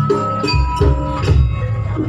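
Javanese gamelan music accompanying a dance: struck metallophone notes ringing in a steady stepped rhythm over deep drum and gong strokes.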